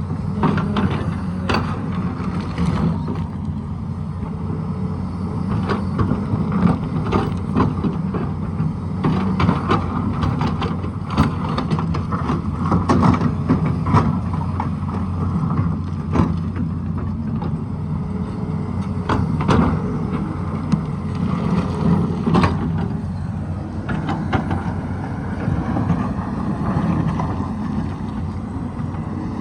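Excavator's diesel engine running steadily under load, with scattered knocks and clatter from the digging.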